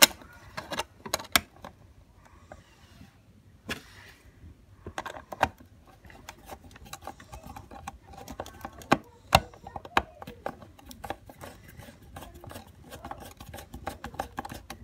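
Phillips screwdriver turning a small screw into the sheet-metal casing of a ceramic hob, giving irregular small metallic clicks and scrapes.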